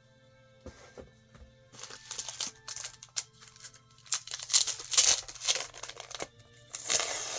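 Plastic packaging crinkling and rustling in repeated bursts, starting about two seconds in, as comic books are handled and unpacked.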